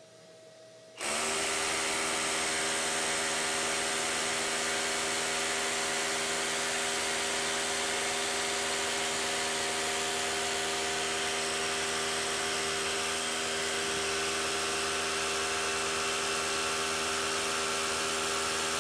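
Milwaukee M18 FUEL 2912-20 cordless brushless SDS-plus rotary hammer hammer-drilling into concrete under full load. It starts about a second in and runs at a steady pitch until it stops near the end.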